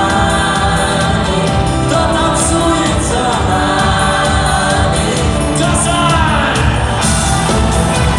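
Live rock band music at a concert, loud and steady, with wordless choir-like singing held over the band and a few gliding melodic lines.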